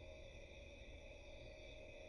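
Near silence: faint steady room tone, a low hum with a few fixed high-pitched tones.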